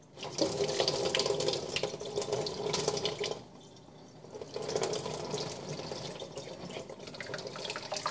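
Cooking water from a saucepan of ramen poured through a clip-on plastic strainer into a sink, splashing as the noodles are drained. The pour comes in two goes, with a short lull about three and a half seconds in.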